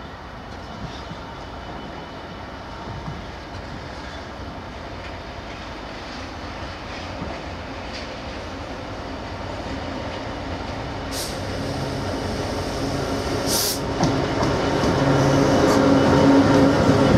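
Class 66 diesel-electric freight locomotive 66601, its two-stroke V12 diesel engine running as it approaches and passes hauling loaded wagons, growing steadily louder. Two brief high-pitched sounds come about two seconds apart in the second half.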